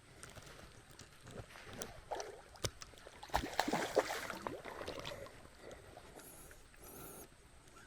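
Water sloshing and splashing, with scattered sharp clicks and a louder burst of splashing about three and a half seconds in, while a hooked trout is being played in a shallow creek.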